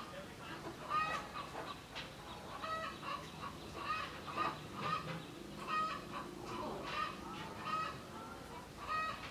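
Chickens clucking: short pitched calls repeating roughly once a second.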